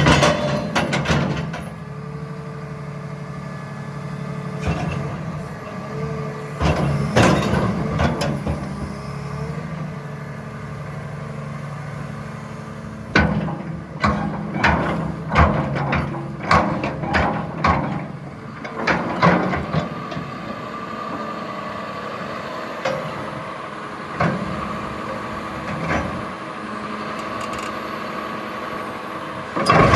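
Caterpillar 323FL excavator running under operation, its diesel engine holding a steady drone. Over it come repeated sharp clanks and knocks, bunched together about 13 to 20 seconds in.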